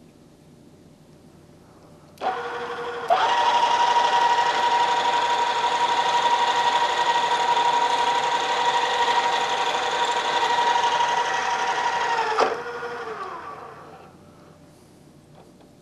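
Drill press motor switched on about two seconds in, running with a steady whine while the twist drill bores through a metal plate. It is switched off near twelve and a half seconds, and the whine falls in pitch as the spindle winds down.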